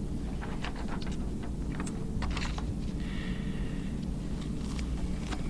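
Papers being handled at a lectern: scattered soft clicks and rustles over a steady low hum.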